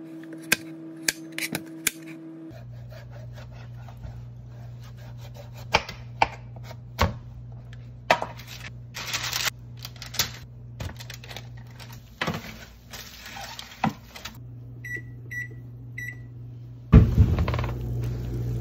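Chef's knife cutting kabocha squash on a cutting board: a few sharp knocks, then scattered clicks and thuds as the squash slices are laid out, over a steady low hum. About fifteen seconds in, a kitchen appliance beeps three times, short and high. Near the end, roasted pork on a foil-lined tray starts sizzling loudly.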